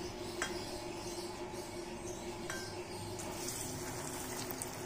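Hot oil sizzling as a besan-battered pumpkin flower fries in a kadai, the sizzle strongest near the end, with a couple of faint clicks.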